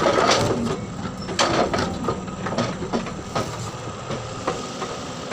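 Caterpillar excavator's diesel engine running steadily, with irregular knocks from the working machine.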